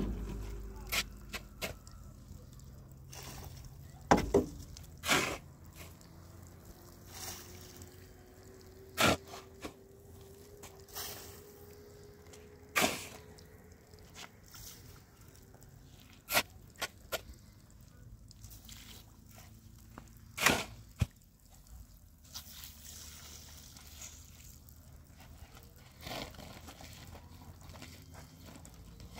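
Water splashing and dripping in occasional sharp drops and knocks, about a dozen spread unevenly, over a faint background.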